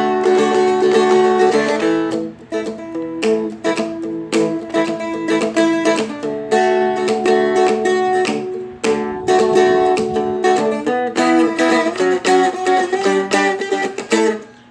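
Seagull Merlin, a small fretted dulcimer-style stringed instrument, flatpicked in a repeating single-note rock riff with quick, closely spaced picked notes, much of it palm-muted.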